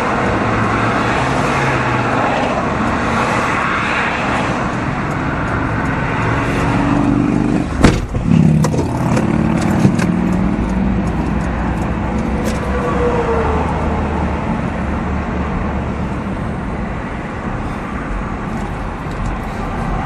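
Van driving on a highway: steady tyre and engine road noise, with one sharp loud knock about eight seconds in and a few lighter clicks over the next few seconds.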